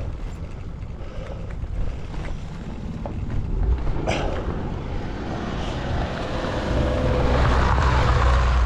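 A Volkswagen car approaching on the road, its engine and tyre noise growing steadily louder through the second half. There is a short sharp knock about four seconds in.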